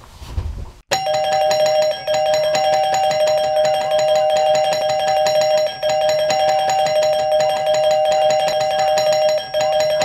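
Electronic two-tone doorbell chime ringing over and over without pause, starting abruptly about a second in, with a brief break every few seconds.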